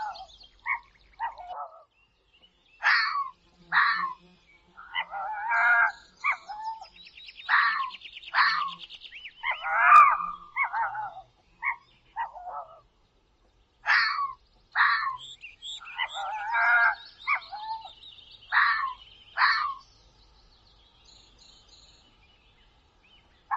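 Fox calling: a long series of short, high barks and yelps, some in quick clusters with brief gaps between. The calls stop for the last few seconds.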